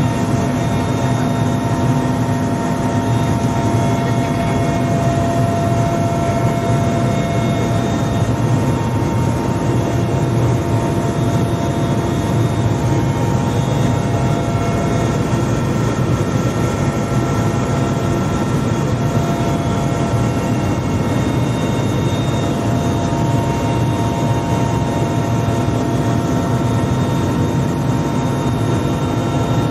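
Helicopter engines and rotors running, heard inside the cabin: a steady, loud deep rumble with several steady whining tones over it.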